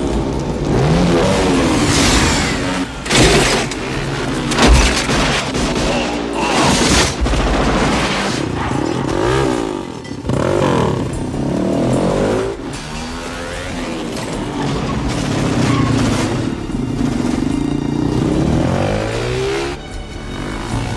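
Film chase soundtrack: a motorcycle engine revving up and down and speeding past, with a fiery explosion at the start and two loud bangs about three and five seconds in.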